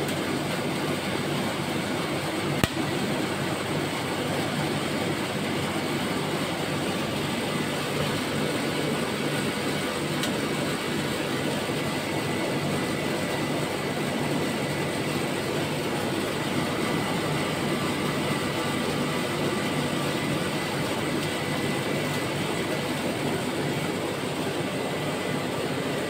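Ice cream roll machine's refrigeration unit (1 PK R32 compressor and condenser fan) running steadily while it chills the plate and freezes the water on it, with a faint high steady whine. A single click about two and a half seconds in.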